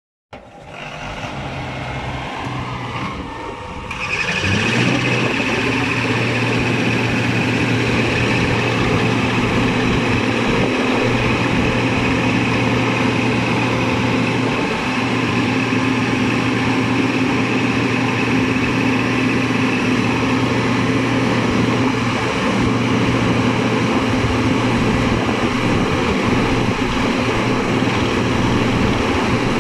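Diesel engine of a Caterpillar CB-634C tandem-drum roller running. About four seconds in it steps up louder into a steady hum and holds there.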